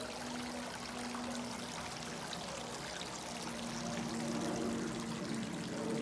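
Shallow creek water trickling over rocks, a steady rushing hiss with a steady low hum underneath.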